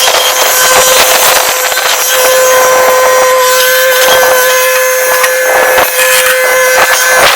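A machine running with a steady whine, mixed with scattered knocks and scraping.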